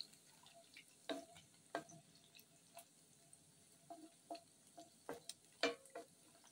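Wooden spatula knocking and scraping against an aluminium pan as strips of beef are stirred in hot oil: scattered short knocks a second or so apart, the loudest near the end, over a faint frying sizzle.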